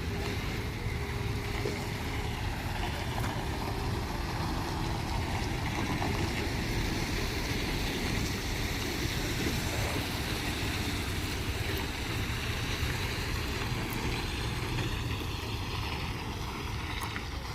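Steady, unbroken rumble of heavy vehicle engines and road noise.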